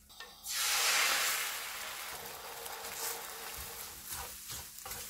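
Beaten eggs hitting a hot, oiled frying pan: a sudden loud sizzle about half a second in, settling into a steady sizzle with small crackles as the eggs are stirred with a wooden spoon.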